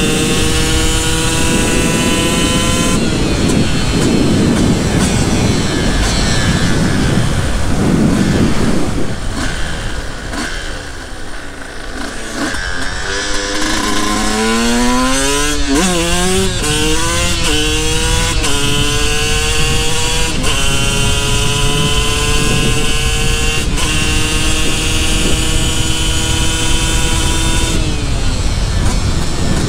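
2023 Sherco 125 Factory two-stroke supermoto engine pulling up through the gears, its pitch climbing in each gear and stepping down at each shift. About ten seconds in the throttle closes and the revs fall away. It then revs hard again through several quick shifts before settling into steady running at speed.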